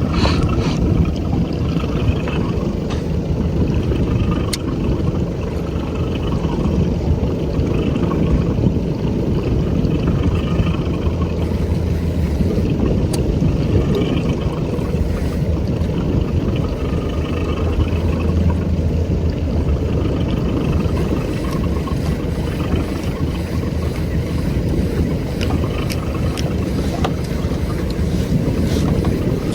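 Motorboat engine running steadily under way, a constant low drone mixed with water and wind noise.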